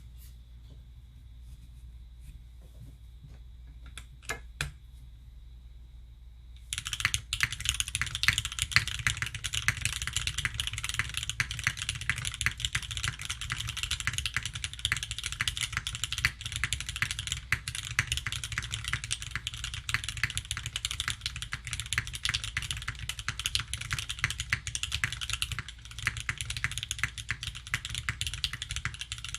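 Fast, continuous typing on a Sangeo60 custom mechanical keyboard with lubed Gateron CJ linear switches on an aluminium plate and GMK keycaps. It starts about seven seconds in, after a few isolated key clicks.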